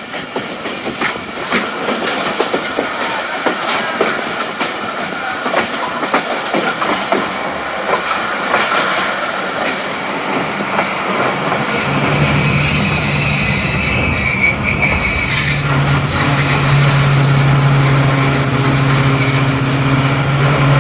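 Tezgam Express coaches rolling on the rails with scattered clicks over the joints. From about halfway a high, steady squeal of wheels and brakes joins in, with a low steady hum beneath it, as the train slows for its stop.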